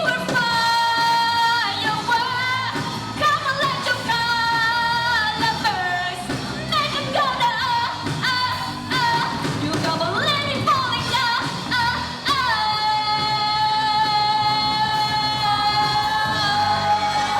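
Live pop-rock band with a singer doing wordless vocal runs, then holding one long note over the band near the end.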